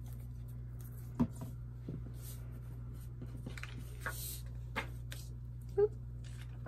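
Sheets of paper being handled on a desk: glued cardstock pressed down and slid across scrapbook paper with brief rustles, and a few light knocks on the desktop, over a steady low hum.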